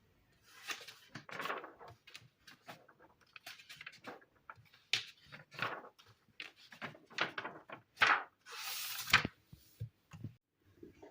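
Irregular small handling noises: light clicks, taps and rustles of objects being moved, with a longer rustle about nine seconds in.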